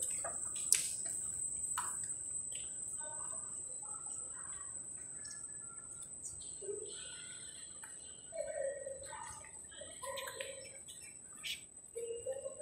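Quiet metro station concourse ambience: a steady high-pitched whine, a sharp click about a second in, scattered short chirp-like tones and faint distant voices.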